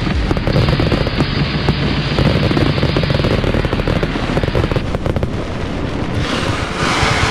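Fireworks display: aerial shells bursting and crackling in a dense, rapid run of bangs and crackles, with a hiss swelling near the end.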